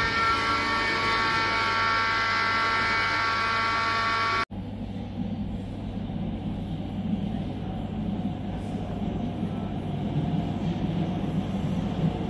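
A chord of steady sustained tones that cuts off abruptly about four and a half seconds in. Then the low rumble of a Budapest Metro Line 1 train approaching through the tunnel into the station, slowly getting louder.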